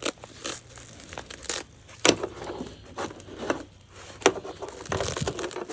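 Nylon chest-rig pouch being handled and folded by hand: fabric rustling with a few sharp clicks, the loudest about two seconds in and near the four-second mark.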